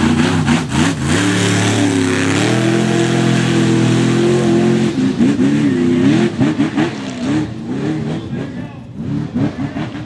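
Mega mud truck's engine revving hard: it climbs about two seconds in, holds at high revs for a couple of seconds, then rises and falls in quick repeated throttle blips.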